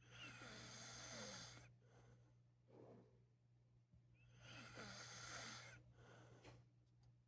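A man snoring faintly in his sleep: two long snores about four seconds apart, each followed by a shorter, weaker breath, over a steady low hum.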